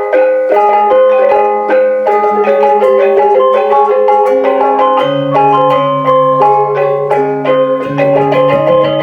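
Balinese gamelan-style music: a quick, busy melody of bright mallet-struck notes over long held low notes, which deepen about halfway through.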